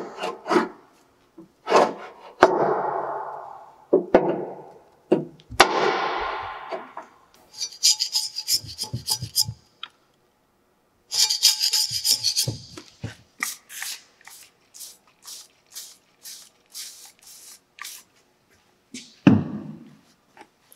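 A steel hand scraper scraping thick caked grease and grime off a steel motor mounting plate in repeated strokes. The strokes are duller at first, then sharper and higher, then come as a quick run of short strokes about two a second. There is one louder, heavier scrape near the end.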